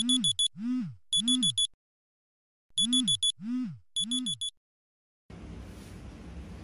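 Smartphone alarm ringing: two rounds of a short tune, each made of three low tones that rise and fall, with quick high beeps in fours over the first and last. It stops about 4.5 s in, and a steady low room hiss and hum follows about a second later.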